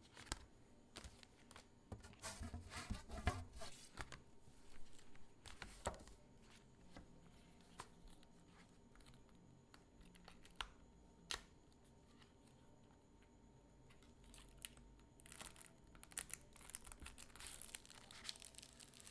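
Packaging crinkling and tearing as it is handled, faint, in bursts with scattered small taps and clicks. There is a busier stretch early on and another near the end.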